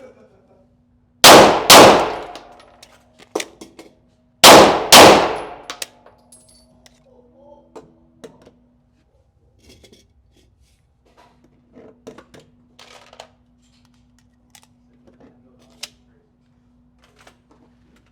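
Four pistol shots from a Glock, fired as two quick pairs about three seconds apart, each ringing in the indoor range. Faint light clicks and knocks follow.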